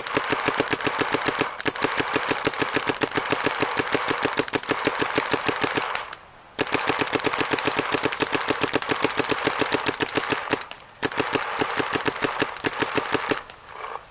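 Planet Eclipse Gmek mechanical paintball marker firing rapid strings of shots, several a second, in three runs with short pauses about six and eleven seconds in. The gun is feeding smoothly from the hopper.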